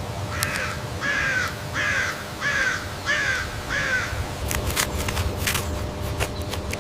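A bird giving six harsh, evenly spaced calls over about four seconds, each one dipping slightly in pitch. A few sharp clicks and knocks follow near the end.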